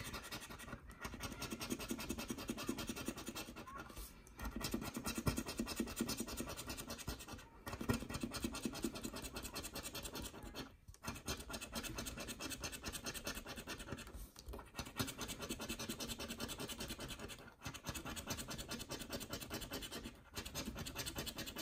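A green plastic coin-shaped scratcher rubbed quickly back and forth over a scratch-off lottery ticket, scraping off the coating in fast strokes. The scratching stops briefly about every three to four seconds.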